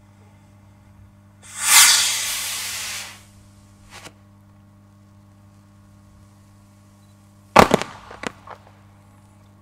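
A firework rocket launches with a hissing whoosh that falls in pitch, lasting about a second and a half. About six seconds later its final report goes off as one sharp bang, followed by a few quicker cracks.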